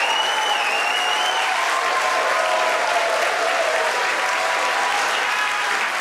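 Large crowd cheering and applauding steadily, with one high wavering call rising over the noise for the first second and a half. The cheering greets the Falcon Heavy side boosters touching down on their landing pads.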